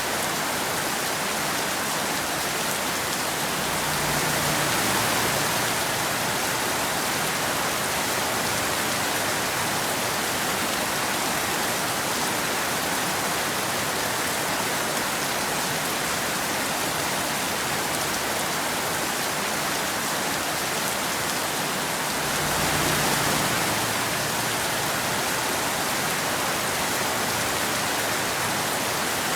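Steady rain falling, a dense even hiss that swells slightly twice.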